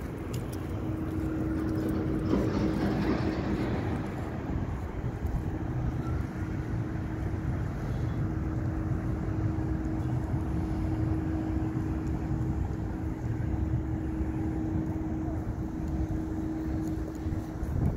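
Outdoor city background: a steady low rumble with a constant hum, and a louder swell of noise about two to four seconds in.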